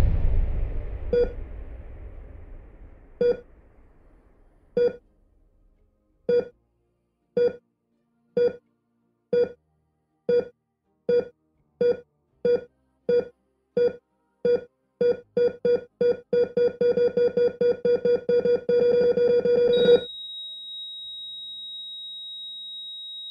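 Electronic beeps at one steady pitch, at first about two seconds apart, coming faster and faster until they run together into a continuous tone. Near the end they cut off abruptly, giving way to a single steady high-pitched tone. At the start a low rumble dies away over the first few seconds.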